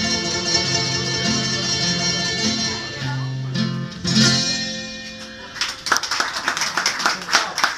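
A live song sung to acoustic guitar comes to its end with a last held note about four seconds in and fades away. Clapping breaks out just before six seconds in.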